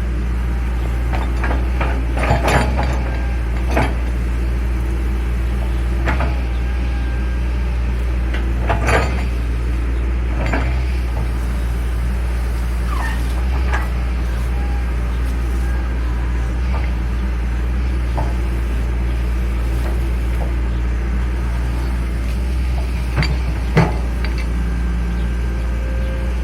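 Excavator's diesel engine running steadily at a low drone, with scattered metallic clanks and knocks as it digs: several in the first ten seconds or so and a sharper one near the end.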